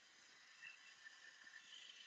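Near silence: faint room tone with a light hiss.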